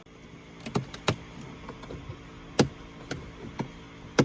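Plastic dash trim panels being handled and pressed into place: a series of sharp, uneven clicks and knocks, over a faint steady hum.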